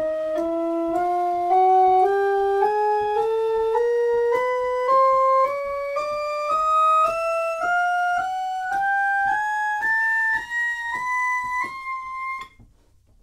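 Doe-Orgel, a small wooden kit-built pipe organ, playing a slow chromatic scale on its Gedackt and flute stops together. Single notes step steadily upward about two octaves, and the scale stops shortly before the end. It is a sound check that every pipe sounds and sits in its right place.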